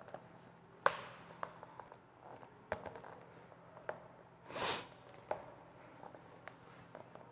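Faint handling sounds of a paperback book: scattered light taps and clicks, with a brief rustle of paper about two-thirds of the way through as its pages are turned.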